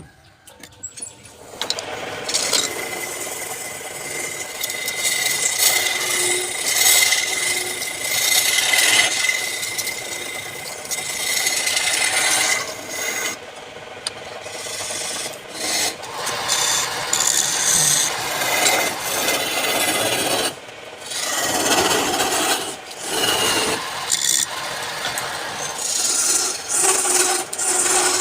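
A tool scraping against wood spinning on a wood lathe, in long passes with a few short breaks.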